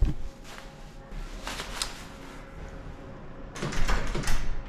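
Clicks and knocks from a hand working the digital keypad lock of a metal door: a short knock at the start, a few faint handling sounds, then a quick cluster of sharp clicks near the end.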